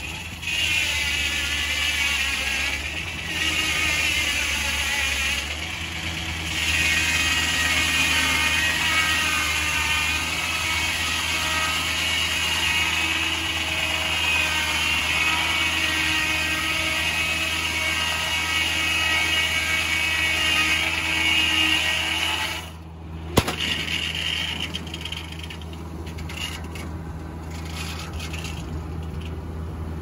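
Foley Belsaw circular sawmill blade ripping through a large pine log, a high ringing whine in the cut over the steady drone of the engine driving the mill. Some 23 seconds in the cut ends: the whine drops away with a sharp knock, and the engine and free-running blade carry on.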